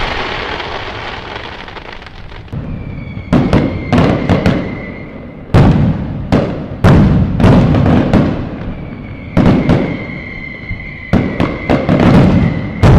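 Fireworks going off: a fading rumble, then a run of sharp bangs at uneven intervals, each trailing an echo, with a high steady whistle sounding under them for a few seconds at a time.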